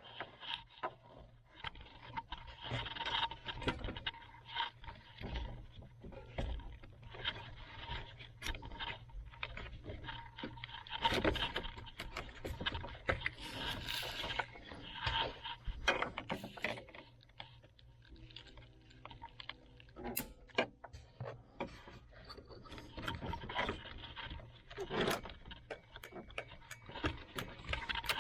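Hands working at plastic wiring connectors and the switch module under a steering column: irregular clicks, taps and scraping, over a low steady hum.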